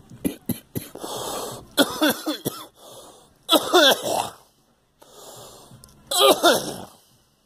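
A person in a coughing fit: a few short coughs, then three loud bouts of strained, wheezing coughing with a wavering pitch, with rasping breaths between them.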